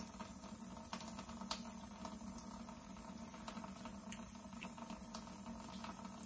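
Faint, scattered small clicks and patters from raw pork chitterlings being handled and cleaned by hand, over a steady low hum.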